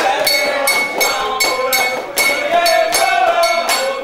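Music: a ringing metal bell struck in a steady rhythm, about two to three times a second, over voices singing.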